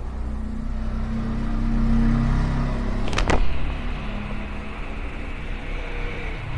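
Steady low mechanical rumble, with a couple of sharp clicks a little after three seconds in.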